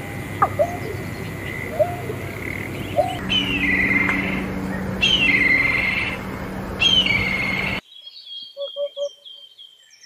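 Bird calls in three short sections. First, short rising notes over a steady high tone. Then a black kite's descending whinnying call, three times. Then, about eight seconds in, a Eurasian hoopoe's soft, low three-note 'oop-oop-oop'.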